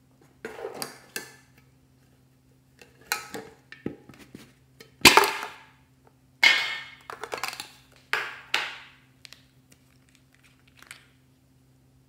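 Plastic tub and lip gloss tubes being handled, making a series of short plastic knocks, clacks and rattles, the loudest about five seconds in. A faint steady low hum runs underneath.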